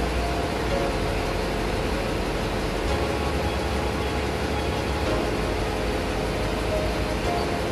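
Steady machinery noise of a ship's engine room with other engines running, a dense even din with a steady hum through it.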